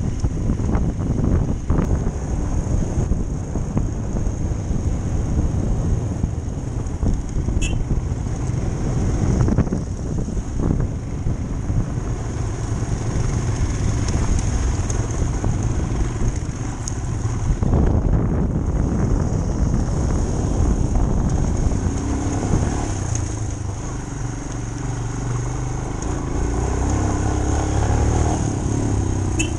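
Motorcycle engine running under way on a rough gravel track, with jolts and rattling from the bumpy surface; over the last several seconds the engine note comes through steadier.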